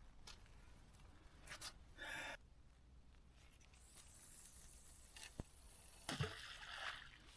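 Near silence with a few faint, brief rustles and a single sharp click about five seconds in.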